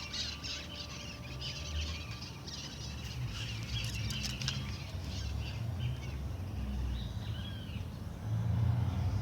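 Birds chirping faintly over a steady low rumble, with a few light clicks about three to four and a half seconds in.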